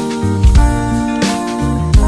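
Background music: instrumental with sustained keyboard and guitar notes and a low beat about every one and a half seconds.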